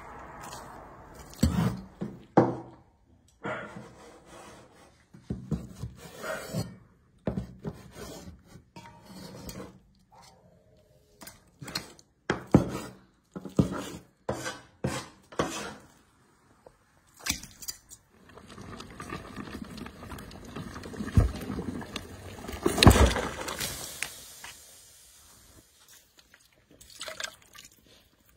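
Food-preparation handling sounds: a string of separate knocks, clatters and splashes of water, then a longer stretch of running or sloshing water about two-thirds of the way through, loudest near its end.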